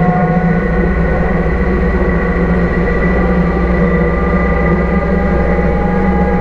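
Deutz 6206 tractor's air-cooled diesel engine running steadily under load while mowing grass with a Fella mower, heard from the driver's seat, with a thin steady whine above the engine note.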